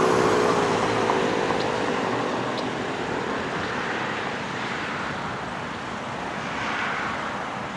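Federal Signal Model 5 outdoor warning siren winding down at the end of its full alert: its falling tone slides lower and fades out within the first couple of seconds. After that only a steady rushing background noise remains.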